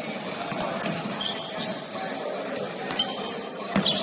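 Indoor basketball game: short high squeaks of shoes on the court over a steady din in the gym, with a sharp ball bounce near the end.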